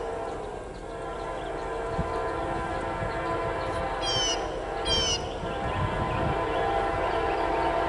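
Distant locomotive air horn, a five-chime chord held in long blasts, growing slowly louder as the train approaches.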